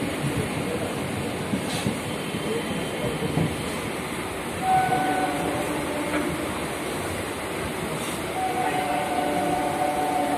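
Inside the coach of an electric local train running along the track, with the steady rumble and rattle of wheels and carriage. A steady pitched tone sounds briefly about halfway through, and several tones together come in from about two-thirds of the way in.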